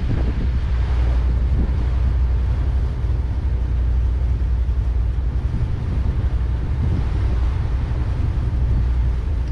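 Ilver 34 Thesi motorboat underway: the steady low drone of its engine with a hiss of wind on the microphone and water along the hull.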